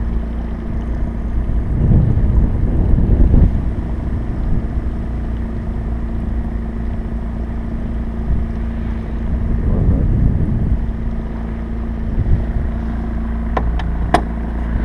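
An outboard motor hums steadily, with a constant low drone. The noise swells louder twice, about two and ten seconds in, and a few sharp knocks come near the end.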